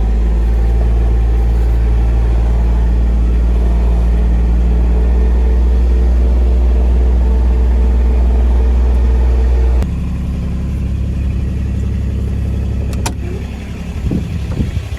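Vehicle engine running steadily with a deep drone; about ten seconds in the note changes abruptly to a lower, rougher sound, and a sharp click comes near the end.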